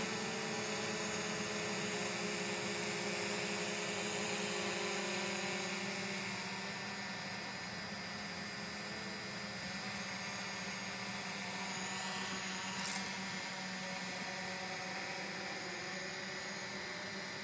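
DJI Mavic Pro quadcopter propellers humming steadily in flight, their pitch shifting slightly as the drone manoeuvres. A brief click sounds once, past the middle.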